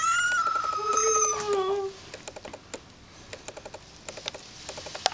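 Young tabby kitten meowing once in the bath, one long high call of about two seconds, followed by soft, irregular small clicks.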